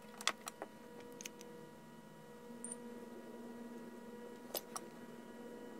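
A few light clicks and taps of tweezers and small tools handling an iPhone 7 logic board, over a steady electrical hum. The clicks come in a quick cluster in the first second or so, then two more near the end.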